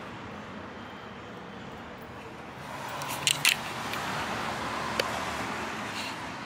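Steady outdoor background noise, a hum and hiss that grows louder about three seconds in, with two quick sharp clicks just after and another about two seconds later.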